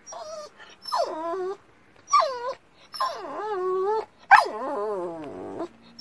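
Small shaggy dog whining and yowling in excited greeting as its owner comes in: a string of about five drawn-out, pitched calls that slide down and then up again.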